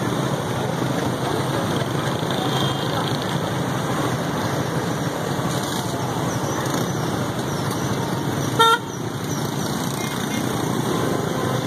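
Steady traffic noise of vehicles in the street, with one short car horn honk about two-thirds of the way through.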